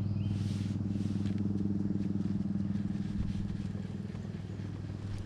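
A boat's motor running with a steady low hum that eases off slightly near the end.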